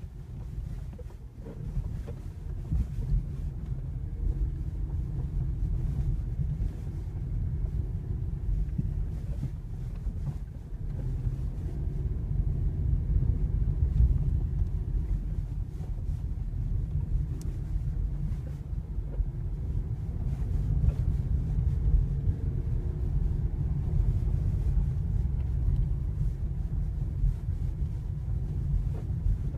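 Volkswagen Golf 7 on the move: a steady low rumble of road, tyres and wind.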